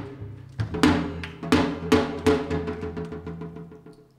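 Korean traditional percussion with sogo hand drums: a few sharp strokes, then quickening strokes that run into a fast roll over a ringing tone and die away near the end, closing the passage.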